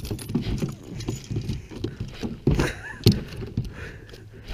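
Irregular knocks, clicks and rattles of fishing tackle and the small boat while a small fish is fought on the line beside the boat, with two louder thumps about two and a half and three seconds in.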